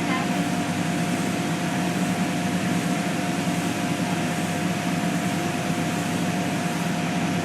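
Woodshop power sander and dust collector running steadily: a low machine hum with a thin, constant whine over it.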